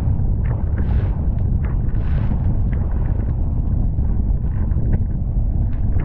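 Heavy wind buffeting the microphone of a jet ski running fast over choppy sea, a steady low rumble with no clear engine note. Hissing splashes of spray break through about once a second in the first few seconds as the hull slaps through the chop.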